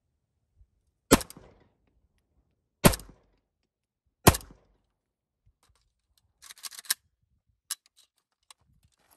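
Three rifle shots from an AK-pattern rifle firing 5.45x39mm ammunition, spaced about one and a half to two seconds apart, each with a short ringing tail. A short rattle of light clicks follows a couple of seconds later, then a few single clicks.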